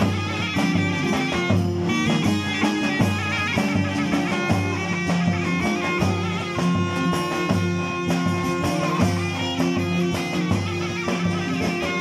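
Instrumental interlude of Turkish folk music: a zurna plays an ornamented, wavering melody over several strummed saz (bağlama), and a davul bass drum keeps a steady, repeating beat.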